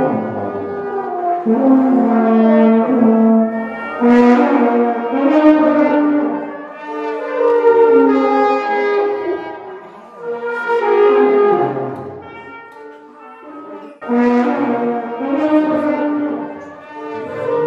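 Brass instruments playing music together in sustained notes, several parts at once, with a French horn prominent. The music grows quiet for about two seconds past the middle, then comes back loud.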